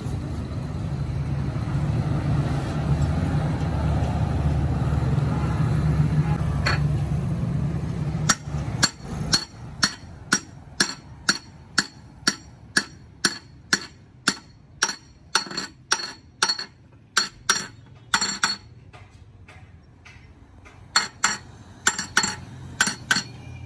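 Hand hammer tapping a piston down into a cylinder bore of a cast-iron six-cylinder diesel engine block: sharp, ringing metallic taps about two a second, pausing briefly near the end before a few more. A steady low vehicle rumble fills the first third, before the tapping starts.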